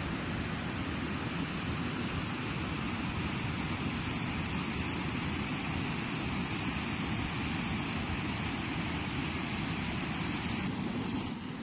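Steady rushing roar of falling water from a waterfall almost 30 metres high.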